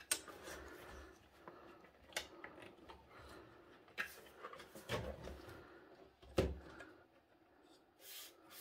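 Scattered light knocks and clicks of a metal-cased CD drive being worked loose from a desktop PC's drive bay while its power and ribbon cable plugs are tugged out. The loudest knock comes a little over six seconds in.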